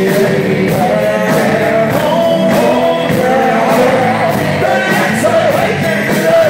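Live band playing a hip-hop song with drums, bass and guitar, with a sung vocal melody over it.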